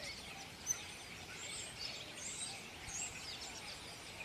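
Several small birds chirping and twittering over a faint outdoor background, with one sharp click just under a second in.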